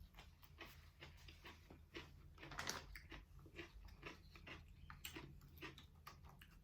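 Quiet close-up chewing and biting of aguachiles: a string of small irregular crunches and wet mouth clicks, a couple a second, with one louder crunch near the middle.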